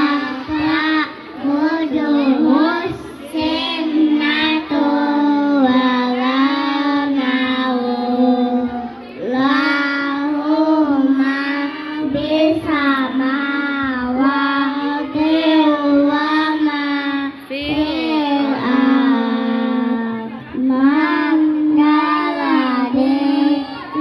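Young children singing a song together, in sustained sung phrases with short breaks between them.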